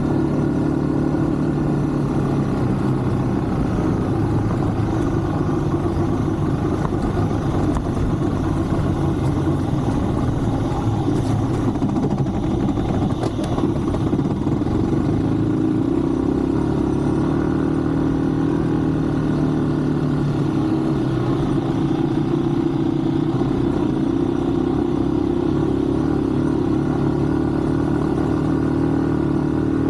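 Yamaha WR155's single-cylinder four-stroke engine running steadily under way, with wind and road noise, and a brief clatter about halfway through.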